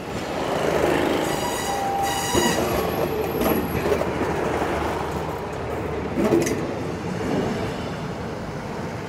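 Passenger train at a station platform, a loud steady rumble and hiss that swells up at the start. A brief high-pitched squeal comes about a second and a half in, and a short sharp clank about six seconds in.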